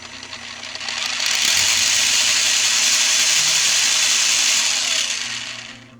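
Arrma Granite Voltage RC truck's 540 20T brushed motor and gear drivetrain whirring as the wheels spin freely: it winds up over about a second, runs steady for a few seconds, then winds down near the end. This is a bench test of the newly installed motor and gears.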